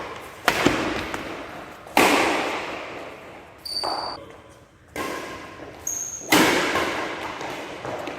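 A badminton rally with a nylon shuttlecock: sharp racket strikes roughly every one and a half seconds, each echoing in a large hall. Two short high squeaks come in between the hits.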